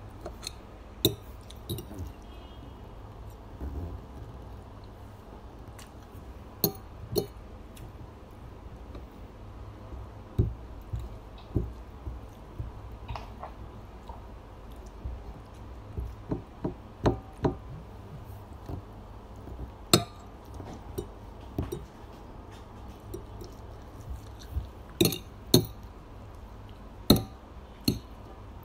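Metal fork and spoon clinking and scraping against a plate during eating, in irregular scattered strikes with the loudest about two-thirds of the way through, over a steady low hum.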